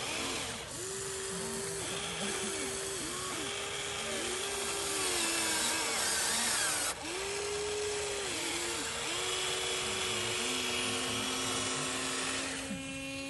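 Remote-control model excavator's small motors whining over a steady hiss, the pitch rising, holding and dropping again in short arcs, about a dozen times, as its functions are worked; near the end a steadier lower whine holds for a few seconds.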